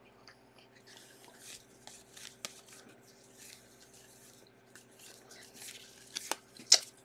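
Faint sliding and rustling of a stack of baseball trading cards as they are flipped through by hand, with two sharp ticks near the end. A faint steady hum sits underneath.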